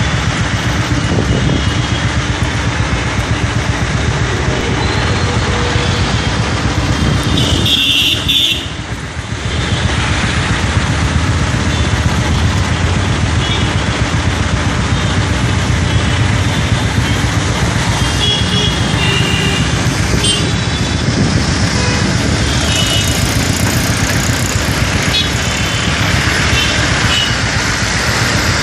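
Busy city road traffic: car, truck and motorbike engines running in slow traffic, with horns tooting several times.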